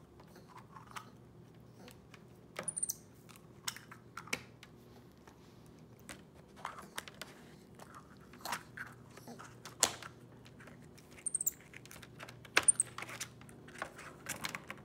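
Irregular light clicks and taps of a small plastic Play-Doh tub and its cap being handled and knocked against a plastic drawing board by a capuchin monkey trying to fit the cap on, with a few short high squeaks.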